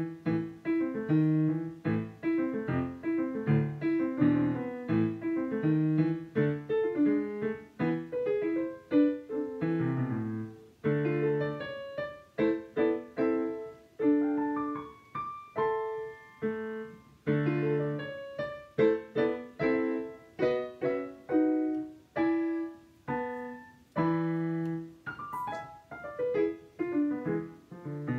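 A piece played with both hands on an upright piano: a melody of short, separate notes over chords and low bass notes, with a few longer held chords.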